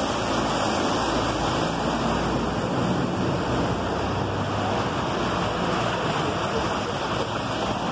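Floodwater rushing along a street in a steady noise. For the first three seconds or so, a bus's engine runs under it as the bus drives through the flood.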